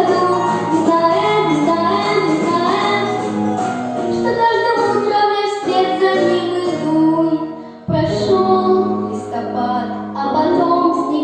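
A young girl singing a pop song over a backing track. The music dips briefly about two-thirds of the way through, then comes back.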